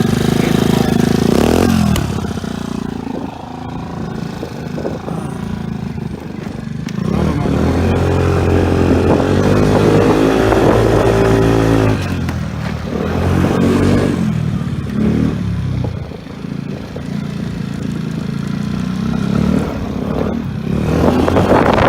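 Kymco Vitality four-stroke scooter engine through a Leovince aftermarket exhaust, idling and being revved: one longer rev about eight seconds in that drops back after some four seconds, then shorter throttle blips, the last near the end.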